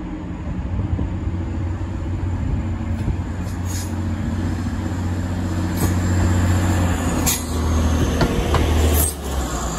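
Class 185 diesel multiple unit approaching and passing close by, its underfloor diesel engine giving a steady low hum that grows a little louder as it draws near. A run of sharp clicks from the wheels over rail joints comes in the second half.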